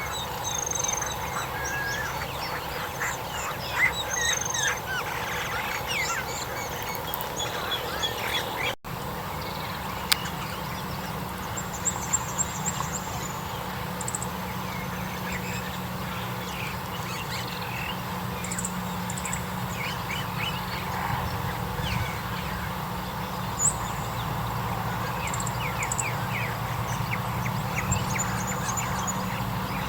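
Birds calling, with ducks quacking among many short high chirps and thin trills of small birds, over a steady low hum.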